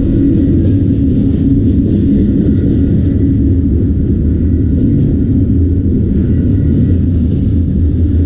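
Autorack freight train rolling past close by: a steady, loud low rumble of wheels on rail that holds even throughout.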